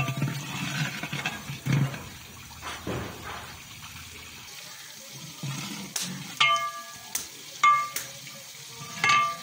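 Onions frying in ghee in a large aluminium pot, sizzling as they are stirred and scraped with a long iron ladle. In the second half come three sharp metal clanks, each with a short ring.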